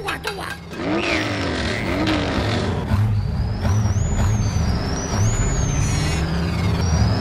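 Podracer engines running: a deep rumble that grows louder about a second in, with a couple of falling swoops, then high whines that rise and fall again and again.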